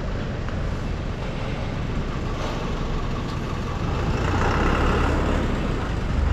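Motor vehicle driving on a mountain road: a steady low engine and road rumble that grows louder for a couple of seconds past the middle, then eases.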